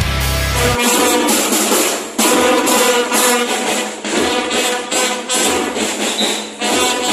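A school brass band with drums playing, sounding thin and without bass. About a second in, it replaces a bass-heavy rock track.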